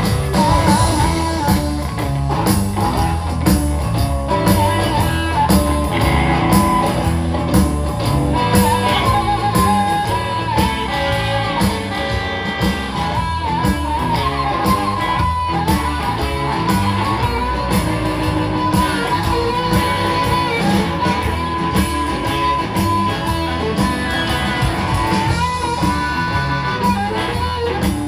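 Blues band playing live: a harmonica solo with bending, wavering notes over electric guitar, bass guitar and drums.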